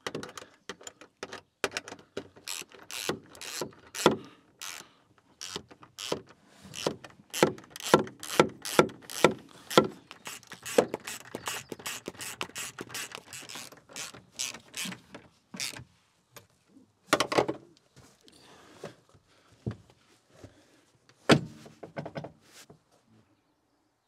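Ratchet wrench with a 12 mm socket clicking in runs of quick strokes as bolts are driven through the seat-back bracket, with sparser clicks and knocks in the last several seconds.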